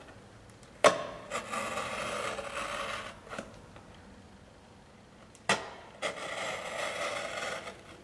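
Cutter knife slicing through the side of a cardboard drink carton: two cuts, each starting with a sharp click and then a scraping drag of the blade for about two seconds, the second one about five and a half seconds in.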